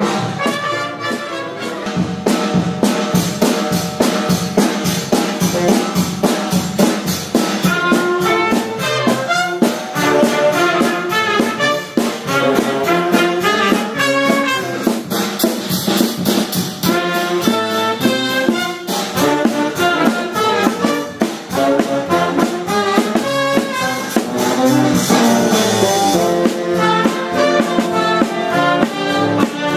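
Live trumpet playing a melody over a steady drumbeat with a snare drum, in a loose jazz-style jam.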